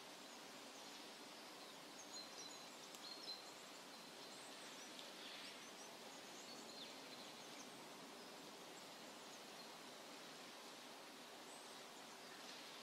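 Near silence: faint outdoor ambience with scattered short, high bird chirps, most of them in the first half.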